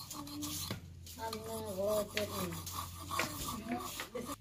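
A knife blade scraped back and forth against a sickle blade to sharpen it: metal grating on metal, with a few sharp clicks. A voice is heard briefly in the middle.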